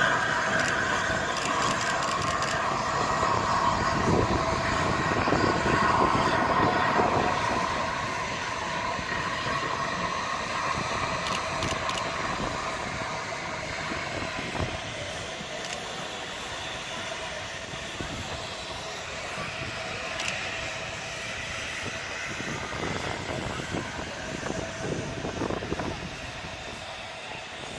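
LNER A3 three-cylinder steam locomotive 60103 Flying Scotsman running along the track. It is loudest for the first several seconds, then fades gradually as it moves away.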